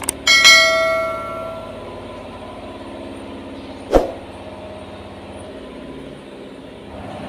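A metal object strikes and rings out for about a second and a half, then a single sharp knock about four seconds in, over a steady mechanical hum.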